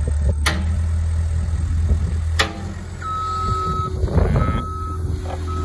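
Caterpillar skid steer loader with its diesel engine running, lifting a heavy truck engine on a chain, with a couple of sharp metallic clanks. About three seconds in, its backup alarm starts beeping as the loader reverses.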